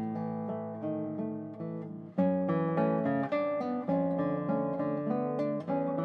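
Solo classical guitar, made by Christopher Dean in 2007, fingerpicked: single notes and chords ring over one another and die away. About two seconds in the sound dips briefly, then a louder plucked chord comes in.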